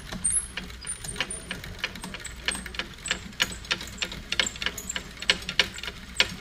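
Okuma line-counter trolling reel being cranked as monofilament line winds onto the spool, its mechanism giving a run of light, irregular clicks, several a second.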